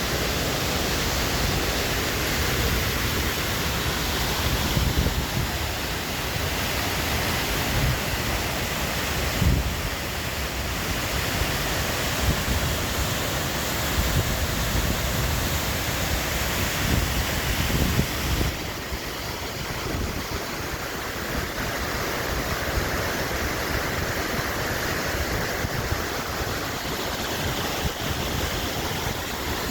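Waterfall pouring steadily, a loud even rush of water. Low bumps on the microphone come and go through the first two-thirds, then ease off.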